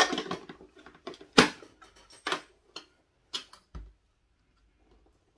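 Booster packs and a card tin being handled on a table: a run of short clicks and crinkles, about one a second, ending in a low thud about four seconds in.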